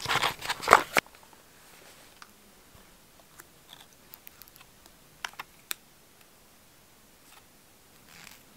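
Hands handling an iPhone 11's box and packaging: a quick burst of crisp clicks and rustles in the first second, then quiet, with scattered soft taps and clicks of fingers on the phone and a few sharper clicks about five seconds in.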